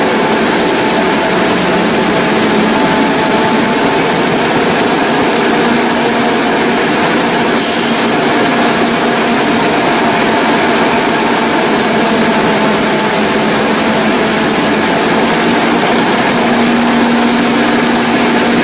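Small wheat flour milling machine running while grinding wheat: a loud, steady mechanical hum and rush with a few faint steady tones, unchanging throughout.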